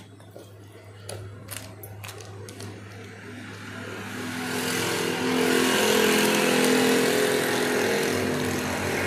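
A motor vehicle passing, its engine and road noise swelling from about three seconds in to its loudest around six seconds, then easing slightly. Before it, a few light clicks and rustles of a seasoning packet being handled.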